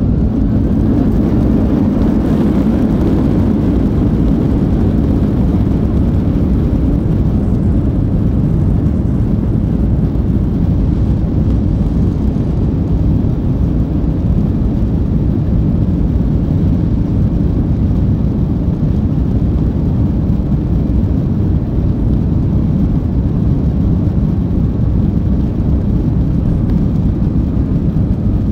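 Airbus A330 jet engines and wheels rumbling steadily, heard from inside the passenger cabin, as the airliner rolls along the ground.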